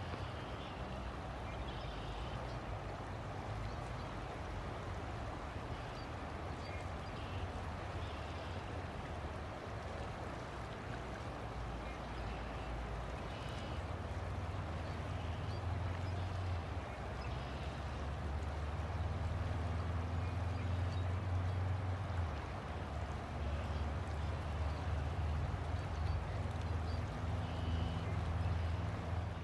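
River water flowing steadily, under a low rumble that grows louder about halfway through.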